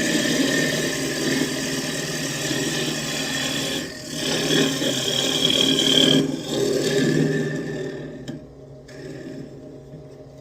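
Wood lathe spinning a cherry bowl blank while a bowl gouge cuts into it. The gouge is dull enough to throw chips and dust instead of ribbons. The cut eases off about eight seconds in, leaving a quieter running sound.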